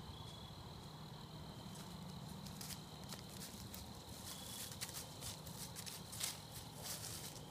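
White-tailed deer stepping through dry fallen leaves: irregular crunching and rustling footfalls that grow denser in the second half, the loudest about six seconds in.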